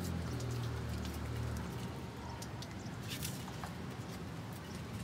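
Hands scratching and patting loose potting soil around transplanted lettuce seedlings, a scatter of small ticks with a brief rustle about three seconds in, over a steady low hum.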